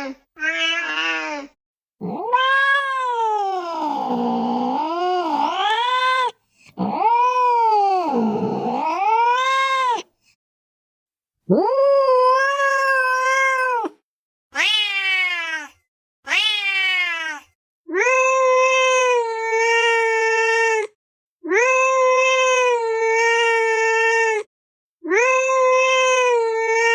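Domestic cat yowling in a series of about nine long, drawn-out meows, the early ones swooping down and back up in pitch, the last three held steady and alike.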